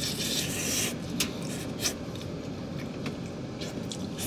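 A utensil scraping against the cooking surface for about a second, working loose grilled mochi that has stuck because the surface was not oiled, then two light clicks.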